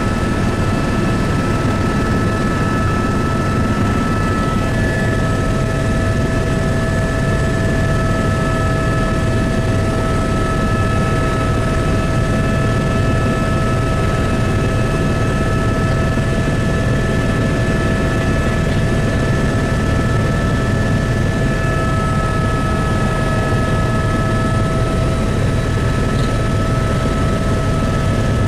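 Helicopter in flight heard from inside the cabin: a loud, steady rotor and engine drone with several constant whining tones over it.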